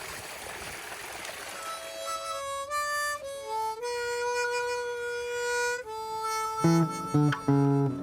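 Stream water running, giving way about two seconds in to a harmonica playing a slow melody of long held notes. Plucked guitar comes in near the end, opening a song.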